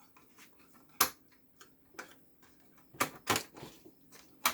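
Irregular sharp plastic clicks and knocks as a part of the all-in-one PC's plastic casing is worked loose and lifted, with the loudest snaps about a second in, a pair around three seconds in, and one near the end.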